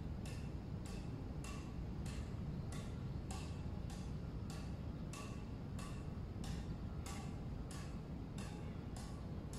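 Squash ball bounced continuously on the strings of a racket held flat, a steady, even tick about twice a second, over a steady low background noise.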